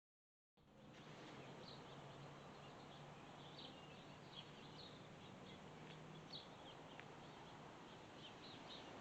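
Faint background hiss with scattered short bird chirps, after about half a second of dead silence at the start.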